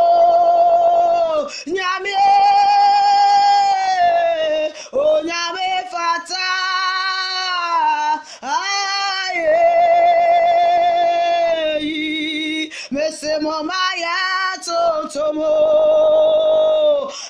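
A woman singing a worship song solo, holding long drawn-out notes with a slight vibrato and pausing briefly between phrases.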